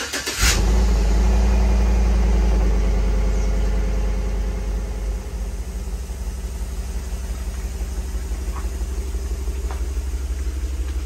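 Chevrolet Tahoe V8 starting up, running at a loud fast idle for about five seconds, then settling to a lower, steady idle.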